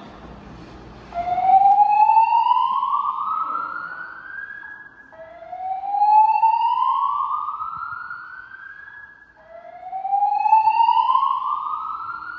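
Voice-evacuation fire alarm speakers sounding a slow-whoop alert tone: three slow rising sweeps, each about four seconds long and cutting off at the top before the next begins. It is the building's evacuation signal, sounded between the system's spoken evacuation messages.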